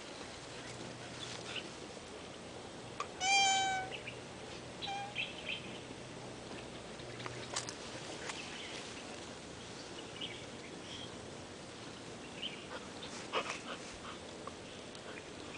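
A male tortoise mating, mounted on a female: one short, high-pitched call about three seconds in and a brief fainter one a second later, with scattered clicks and knocks of shell against shell.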